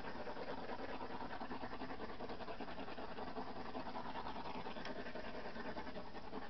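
Steady hiss of a small handheld torch flame being passed over wet acrylic pour paint.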